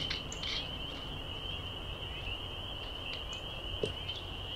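A steady high-pitched chorus of calling frogs, with a few short chirps over it.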